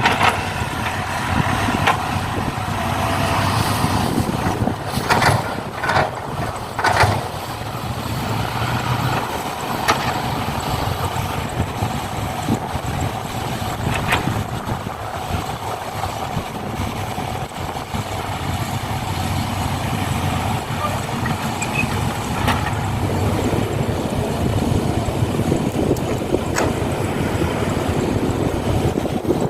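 Radio-controlled model trucks and excavators working, with a steady engine-like running sound and several sharp knocks about five to seven seconds in and again around fourteen seconds.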